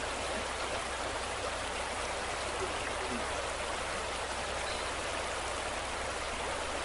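Steady rush of muddy floodwater pouring down a hillside, an even unbroken hiss of water.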